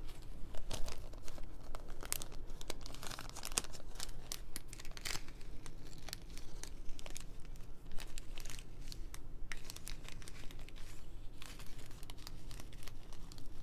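A small plastic zip-lock bag of diamond-painting drills being handled, its plastic crinkling and crackling in irregular bursts.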